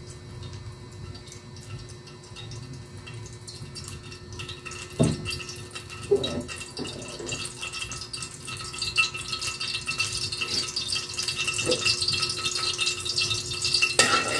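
Cooking oil heating in an aluminium wok over a gas flame, a faint hiss building into a light sizzle and crackle over the second half. A few knocks come in the middle, and near the end a spatula scrapes loudly against the wok.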